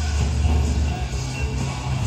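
Movie-trailer music with heavy, sustained deep bass, played loud through a home theater speaker system with a Rythmik L12 sealed subwoofer and heard in the room.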